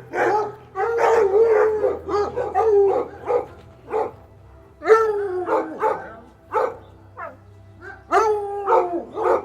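A dog barking repeatedly in quick succession, some barks drawn out into longer calls that fall in pitch.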